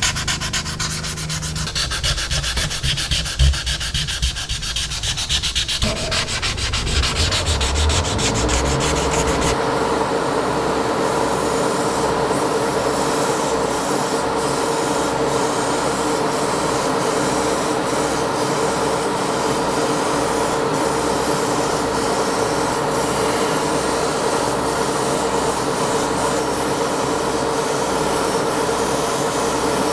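Sandpaper rubbed back and forth in quick strokes over a primed model truck cab. About ten seconds in it gives way to the steady motor hum and hiss of airbrush spraying equipment, with a faint even pulse underneath.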